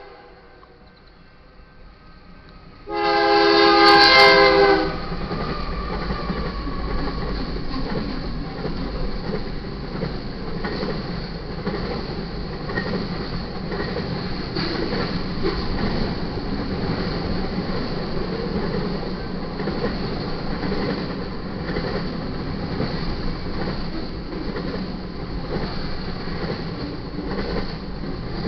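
Freight locomotive air horn sounds one loud blast of about two seconds, a few seconds in, from the lead GE Dash 9-44CW; then the steady rumble of the locomotives and intermodal train rolling past, with wheels clicking over the rail joints.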